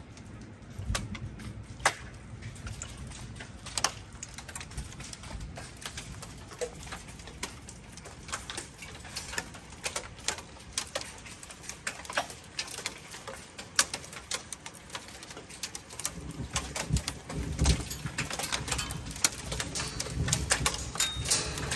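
The first scattered strikes of a summer hailstorm: irregular sharp ticks of stones and drops hitting a wooden deck and its surroundings. They come thicker in the last few seconds, when a low rumble also rises.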